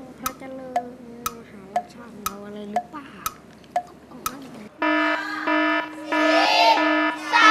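A game-show countdown timer ticking about twice a second, then, a little under five seconds in, a pulsing electronic buzzer sounding as the 15-second answer time runs out. Children's voices call out over the buzzer near the end.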